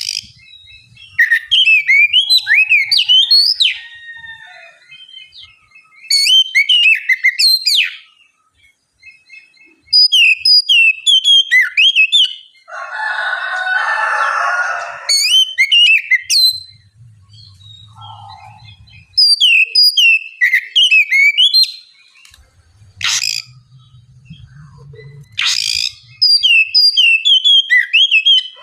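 Oriental magpie-robin singing in separate bursts of rapid, varied whistled phrases, each about two seconds long, with short pauses between them. A harsh, noisy rasp of a couple of seconds comes about halfway through.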